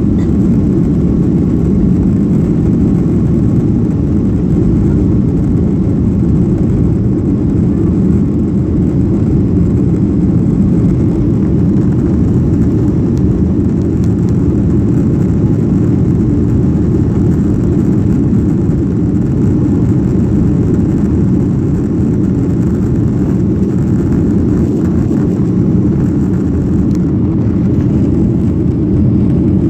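Cabin noise of a Boeing 737-800 with CFM56-7B26 turbofans at take-off thrust, heard from a window seat over the wing: a steady low rumble through the end of the take-off roll, lift-off and initial climb.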